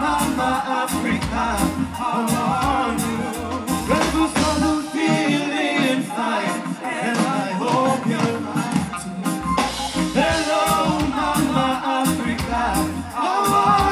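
Reggae performed live: a singer over a band with drums and bass, the bass dropping out for a few seconds midway.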